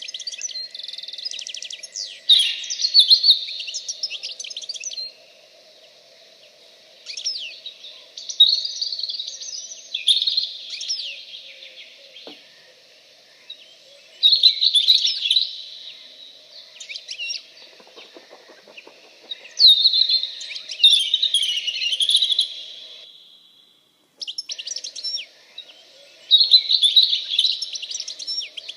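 Songbirds singing in bursts of rapid chirps and trills every few seconds, over a faint steady low hum. The sound cuts out completely for about a second near the end, then resumes.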